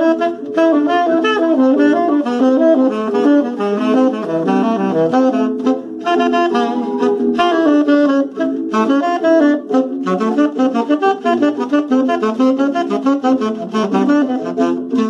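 Tenor saxophone playing a fast choro melody: a quick, unbroken run of notes with a few short pauses between phrases.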